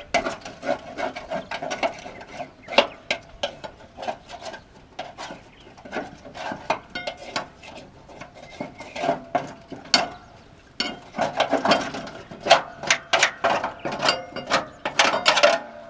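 A scraper scraping packed grass and dirt off the underside of a lawn mower's cutting deck: a quick, irregular run of scrapes and knocks, busiest in two spells with a quieter stretch in the middle. This is the deck being cleaned so air can flow under it again.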